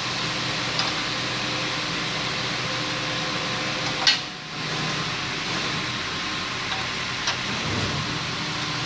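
A vehicle engine running steadily, with a sharp click about four seconds in and a brief drop in level just after it.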